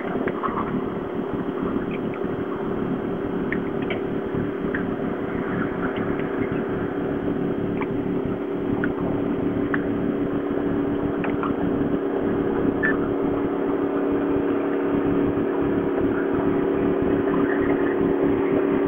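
Motorboat engine running steadily at speed, an even drone that grows gradually louder.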